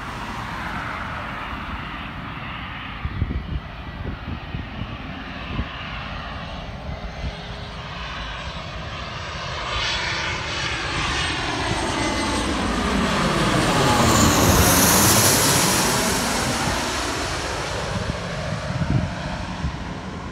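Gulfstream G550's twin Rolls-Royce BR710 turbofans on landing approach: a rushing jet noise that grows as the jet passes low overhead about 14 to 15 seconds in, with a sweeping, phasing whoosh and a high hiss at its loudest, then fades as it descends toward the runway.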